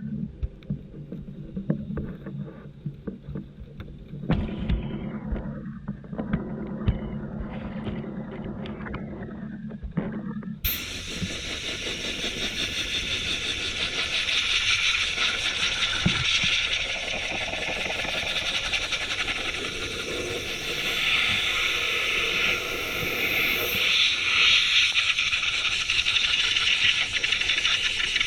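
Electric RC desert buggy running in snow. First comes a low rumble with scattered knocks and scrapes. About ten seconds in, the sound switches abruptly to a louder, steady high whine with a rushing noise.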